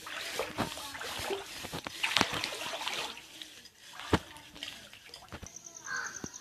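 Floodwater splashing and sloshing, with irregular splashes and a trickle over the first three seconds, then quieter. A crow begins calling near the end.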